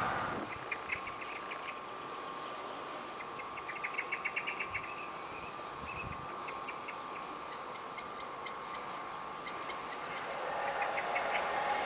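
Small birds chirping in quick repeated runs of short high calls. Near the end a Class 70 diesel freight locomotive starts to be heard approaching, growing slowly louder.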